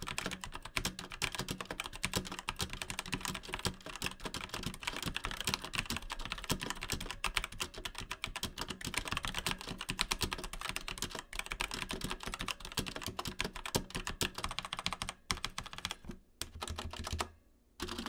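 Typing on a Drevo Durendal mechanical keyboard with Outemu Red linear switches: a fast, continuous patter of keystrokes that thins to a few separate presses in the last couple of seconds.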